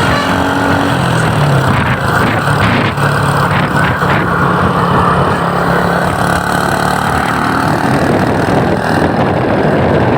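Loud road-traffic noise: a heavy vehicle's engine running with a steady low drone under a constant rush of road and wind noise.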